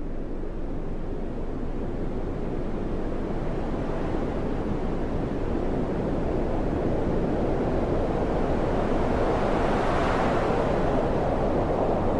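Sea waves washing and breaking on the shore, a steady surf noise with wind on the microphone, swelling to its loudest about ten seconds in.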